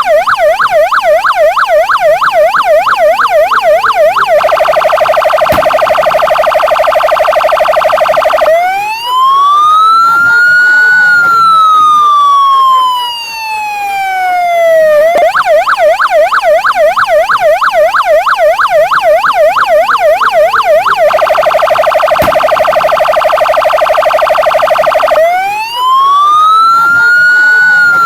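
Police patrol car's electronic siren cycling through its tones: a fast yelp sweeping up and down a few times a second, then a steady rapidly pulsing tone, then a slow wail that rises and falls. The cycle repeats about every 17 seconds.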